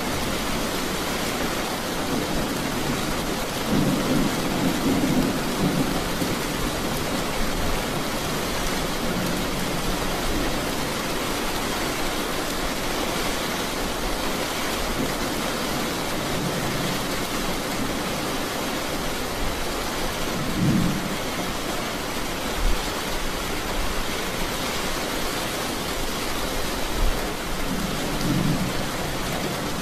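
Steady rain with low rolls of distant thunder: a longer roll a few seconds in, a short one about two-thirds through, and another near the end.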